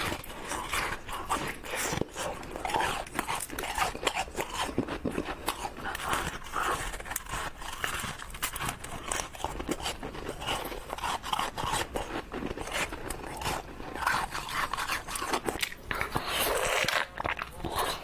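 Crushed ice being bitten and chewed close to the microphone: a dense run of quick, irregular crunches and crackles.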